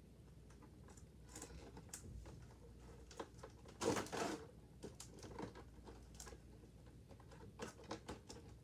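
Doll-box packaging being handled: scattered small clicks and scrapes of plastic and cardboard as the doll's retaining straps are worked loose, with a louder rustle about four seconds in.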